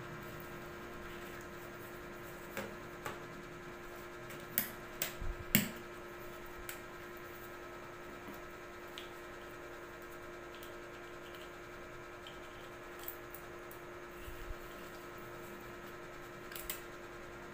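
Scattered small clicks and taps of a Nikon D7100 DSLR body being handled, the sharpest in a cluster about five seconds in, over a steady low hum.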